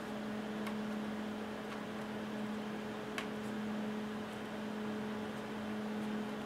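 Steady low background hum with a few faint, light clicks of small laptop parts being handled.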